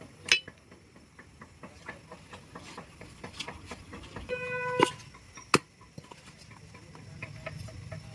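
A butcher's knife cutting boneless meat on a block: many small taps and scrapes, with two sharp knocks of the blade on the block, one just after the start and one about five and a half seconds in. A short steady beep-like tone sounds about four and a half seconds in.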